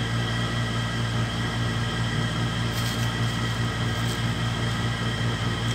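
Steady low hum of a running appliance motor with a constant hiss, and a couple of faint clicks about three and four seconds in.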